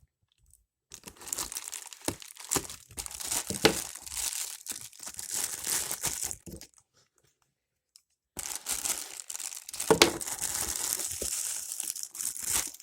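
A shipping package being torn open by hand: crinkling and tearing of the packaging with occasional sharp snaps. The rustling stops dead for a second or two in the middle, then resumes.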